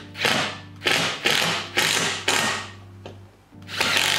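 A series of short rasping strokes, about two a second, with a longer stroke near the end, over a steady low hum.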